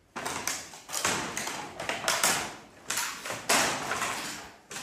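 About a dozen sharp, irregular taps and knocks of a hard object, each trailing off in the echo of a bare room.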